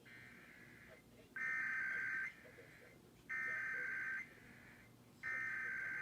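Emergency Alert System SAME header: three bursts of buzzy, warbling digital data tones, each just under a second long with about a second between them, after a fainter burst of the same tones at the very start. The header carries the coded alert data, here for the Arizona required monthly test, ahead of the attention tone.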